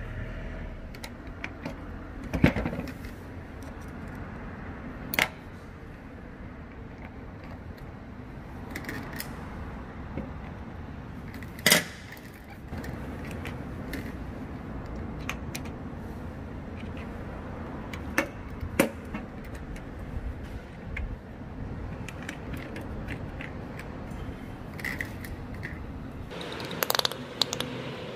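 Metal parts and hand tools clinking and knocking now and then during rotor-case repair on a rice transplanter, over a steady low hum. The sharpest knocks come about two and a half and about twelve seconds in, with a cluster of clinks near the end.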